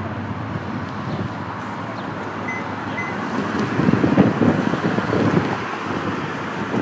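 Wind buffeting the microphone over steady road traffic, the gusts strongest about four to five seconds in.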